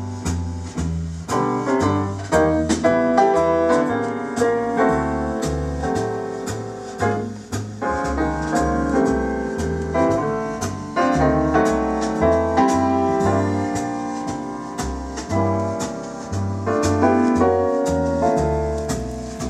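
Piano music with a bass line stepping about twice a second, played from a record through the phono stage of an Audio Research SP6 preamplifier.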